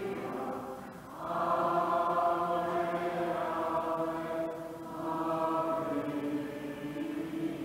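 Congregation singing a slow closing hymn in long held notes, two sung phrases with a short break about a second in and another near five seconds in.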